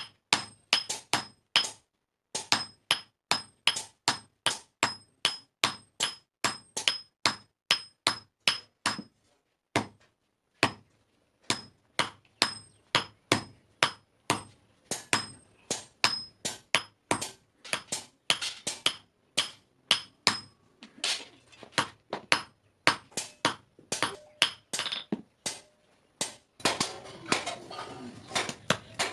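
Blacksmith's hammer striking metal on an anvil while forging a knife: steady blows about two a second, each with a high ringing ping, with a couple of brief pauses.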